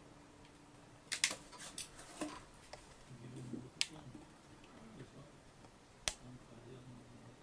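Scattered faint sharp clicks and light knocks: a quick cluster about a second in, then single ticks roughly every two seconds.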